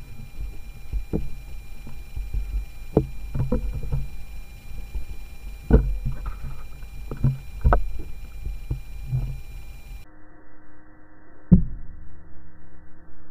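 Scattered knocks and thumps over a low rumble: handling noise picked up by a camera mounted on an air rifle's scope as the rifle is held and moved.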